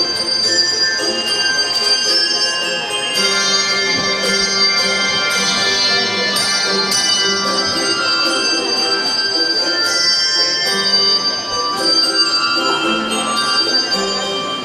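A handbell choir playing, with many bells struck in quick succession and ringing on over each other. Low bell notes are held underneath from about three seconds in.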